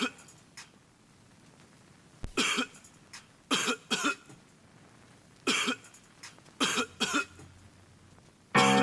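A person coughing: about seven short coughs, several in quick pairs, with gaps of a second or more between them.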